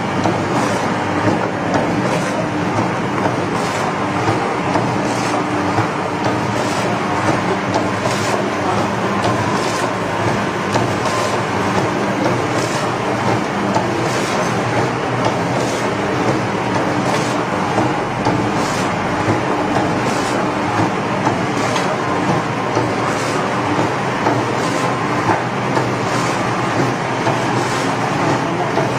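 Automatic powder sachet filling and packing machine with back-seal sealing jaws running, a steady mechanical clatter with a regular clack about every three-quarters of a second as it cycles through sachets.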